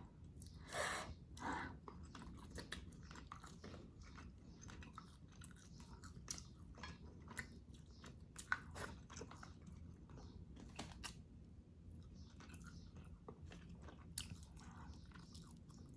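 Close-miked mouth sounds of someone eating: soft chewing, lip smacks and small wet clicks at an irregular pace, a little louder about a second in, over a faint low hum.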